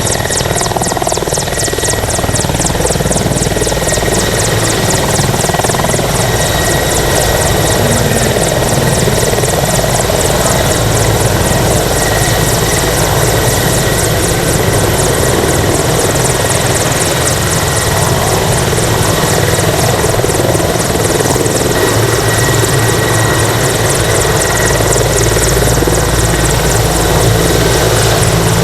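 Overhauled Russian-built helicopter running, its rotor blades chopping in a rapid, even beat over a steady high turbine whine.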